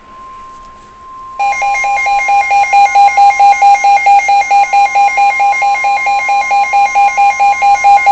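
Weather radio sounding a severe thunderstorm warning alert: a steady NOAA Weather Radio warning alarm tone, joined about a second and a half in by the receiver's loud pulsing alarm beep, about five beeps a second.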